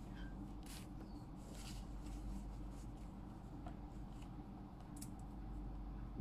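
Faint scratching of a pen writing on paper in short, scattered strokes, over a steady low hum.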